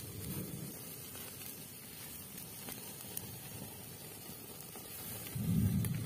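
Open wood cooking fire burning with a steady hiss and a few faint crackles, with a louder low rumble about five seconds in.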